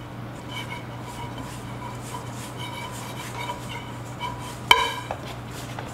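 Hands mixing flour and water into a stiff dough in a stainless steel bowl: soft rubbing and scraping, with the bowl giving off faint short ringing tones as it is worked. A sharp knock against the bowl rings out once, about three-quarters of the way through.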